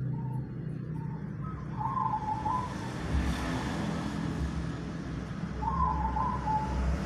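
Local zebra dove (perkutut) cooing: short trilled phrases of stepping notes, faint at the start, then clear about two seconds in and again near the end. A low steady rumble runs underneath.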